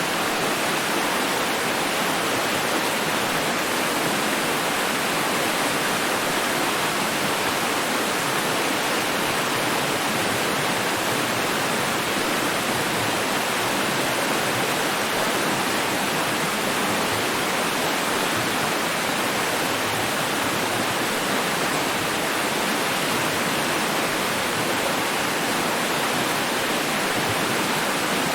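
Running water rushing steadily, an even hiss with no changes or breaks.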